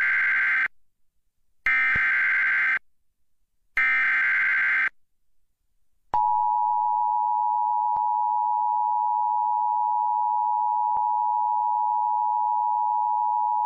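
Emergency Alert System tones: three short bursts of the buzzing digital SAME header about a second apart, then from about six seconds in the steady two-tone EAS attention signal (853 and 960 Hz), which announces a severe thunderstorm warning.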